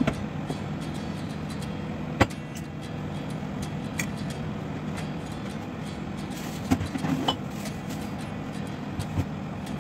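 A metal lid clinks onto a cooking pot at the start, over a steady low hum. Scattered sharp clicks and taps follow: the loudest about two seconds in, and a small cluster around seven seconds in.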